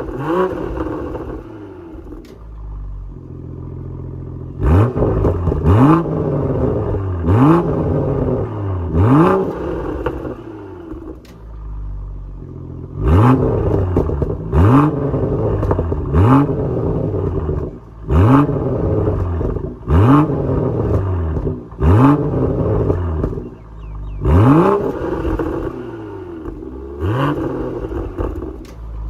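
BMW B58 3.0-litre turbocharged inline-six with an aftermarket exhaust, free-revved in about a dozen quick blips a second or two apart. Each blip rises and falls in pitch, with a sharp crack from the exhaust near its peak.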